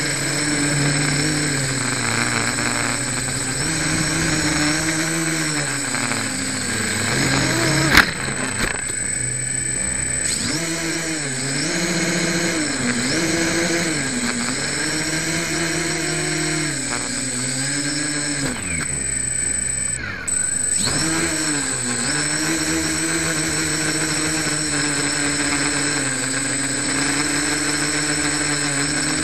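Quadcopter's electric motors and propellers buzzing, heard from the onboard camera, the pitch rising and falling again and again with throttle changes; its propellers are not yet balanced. A steady high whine sits over it, and there is one sharp knock about eight seconds in.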